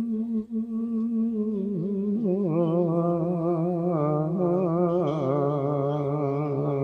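An elderly man singing an Urdu manqabat unaccompanied, drawing out one long syllable. He holds a steady note, then about two seconds in drops to a lower note sung with a wide, wavering pitch.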